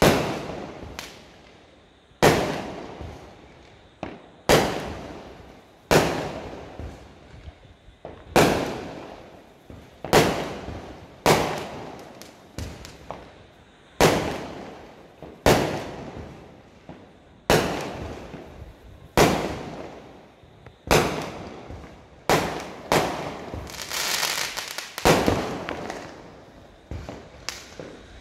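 Aerial fireworks bursting one after another, a sharp bang every one to two seconds, each trailing off over about a second. About three quarters of the way through, the bangs come closer together with a longer rush of hissing noise.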